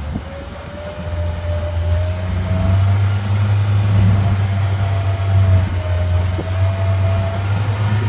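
Boat motor running steadily with a low hum that grows louder about a second in, under a thin whine that wavers slightly in pitch.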